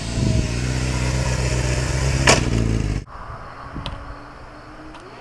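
Sport motorcycle engine running hard as the bike passes close by, with a brief burst of noise about two seconds in. It cuts off abruptly about three seconds in, leaving a faint, distant engine.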